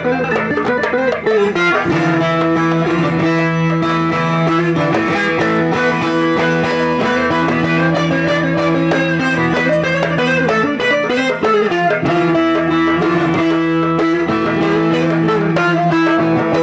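Several bağlamas (long-necked Turkish saz lutes) played together in an instrumental passage: a quick plucked melody over steady ringing drone notes from the open strings.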